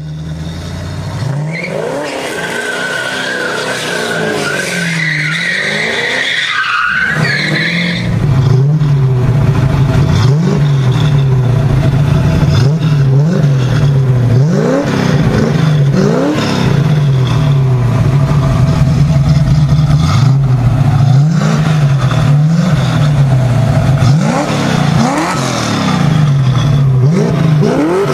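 Classic Ford Mustang engine revved repeatedly with the car standing still: the pitch rises and falls back every second or two over a steady, loud engine drone. For the first several seconds a different, wavering high-pitched squeal with engine noise comes before it.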